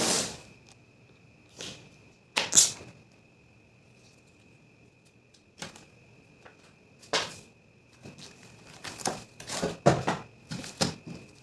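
Keyboard box and packaging being handled and opened: irregular rustles, scrapes and knocks, loudest around two and a half seconds in and in a busier cluster near the end, over a faint steady high whine.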